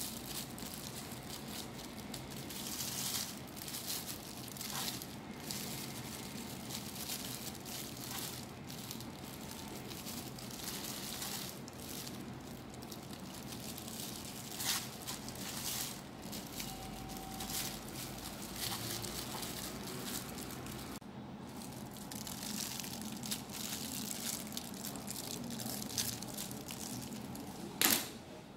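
Steady kitchen hiss with scattered soft clicks and crinkles as a gloved hand handles food on a cutting board. There is one sharp click near the end.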